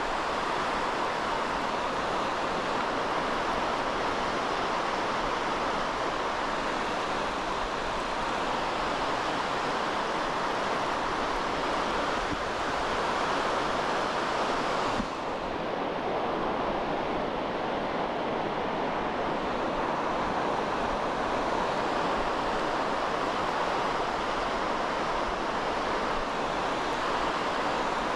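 Steady rush of small surf waves breaking in the shallows, with some wind on the microphone. About halfway through, the sound changes abruptly as its higher hiss drops away.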